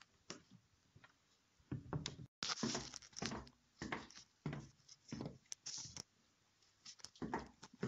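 Footsteps, an irregular string of steps roughly a second apart, the louder ones starting about two seconds in, with some rustling.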